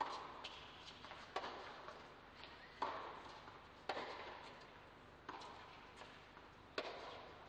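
Tennis rally: rackets striking the ball back and forth, six sharp hits about a second and a half apart, each with a short echo.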